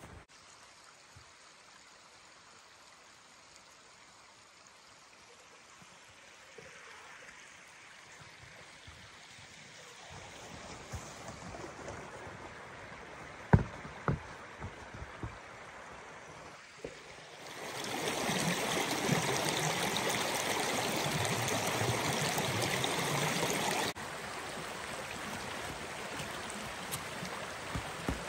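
Small, shallow woodland stream running over rocks: a faint rushing of water that slowly grows louder, turns loud for several seconds, then drops suddenly to a steadier, quieter rush. A few sharp knocks are heard about halfway through.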